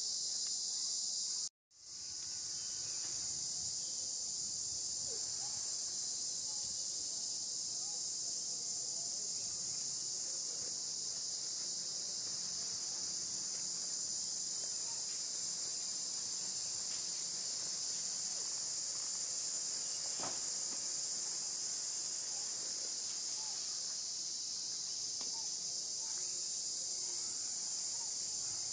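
Forest insect chorus: a steady, high-pitched, continuous buzz that cuts out for an instant about a second and a half in and then carries on unchanged.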